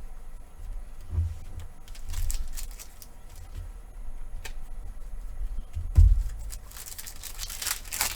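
Trading cards being handled and rustled, with a couple of soft thumps on the table.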